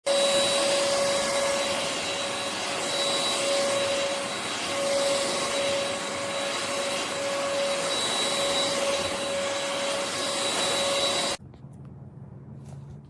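UML0 N8 cordless stick vacuum running steadily, a rush of air with a steady whine. It cuts off suddenly near the end, leaving a few faint clicks.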